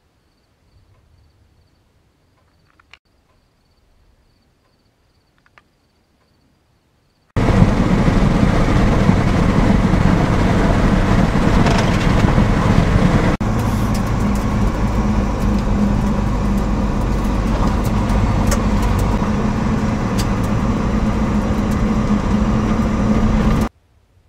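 Near silence with a few faint clicks, then, about seven seconds in, a car's engine hum and road noise, heard from inside the cabin while driving. It is loud and steady, drops out for an instant about six seconds after it starts, and cuts off abruptly near the end.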